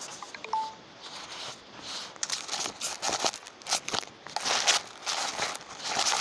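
Handling noise: a hand rubbing and knocking against a phone's microphone, giving irregular rustles and clicks, with a brief beep about half a second in.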